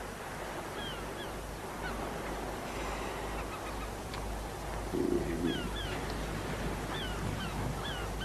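Quiet outdoor ambience with a steady low hum and small birds chirping: short, quick calls, often in pairs, every second or two. A brief low sound rises slightly above the rest about five seconds in.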